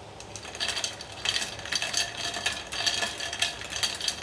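Ice cubes clinking against a glass measuring jug as a metal thermometer probe is stirred through the ice water: irregular bright clinks starting about half a second in and continuing quickly.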